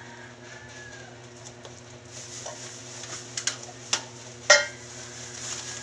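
Plastic household waste being handled and sorted: a rustle from about two seconds in, with a few sharp clacks of items knocking together, the loudest about four and a half seconds in.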